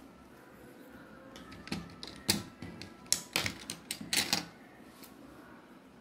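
A run of sharp plastic clicks and taps, lasting a couple of seconds from about two seconds in, as a pen is handled and uncapped, its cap clicked onto the back end.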